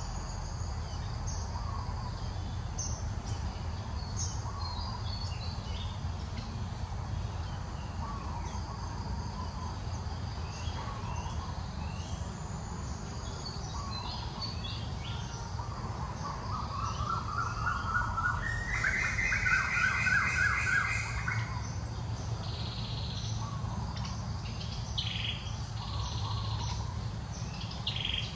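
Birds chirping and calling throughout, short high chirps over a steady low rumble. About two-thirds of the way through, a louder run of rapid repeated notes, stepping up in pitch, lasts about five seconds.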